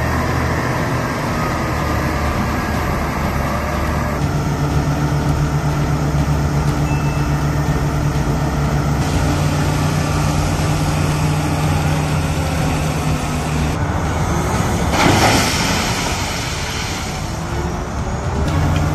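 Heavy diesel engines of a Caterpillar mining haul truck and wheel loader running steadily, the engine note shifting a couple of times. A brief loud rush of noise comes about fifteen seconds in.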